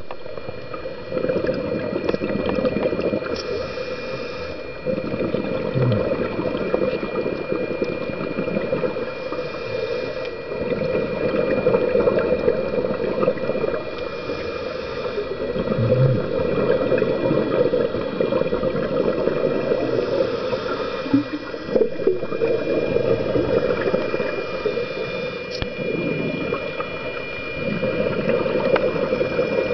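Scuba diver breathing through a regulator underwater: bubbly rumbling of exhaled air swelling and fading, with a short hiss of inhaling about every five to six seconds. A faint steady high tone runs underneath.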